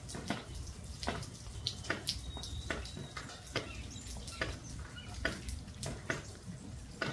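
Light rain dripping: irregular sharp drops and taps, roughly two a second, with a few faint short high bird chirps.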